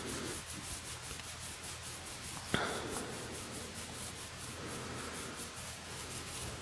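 Fingers scratching through a scarlet macaw's feathers: a soft rubbing repeated about five strokes a second, with one short sharp click about two and a half seconds in.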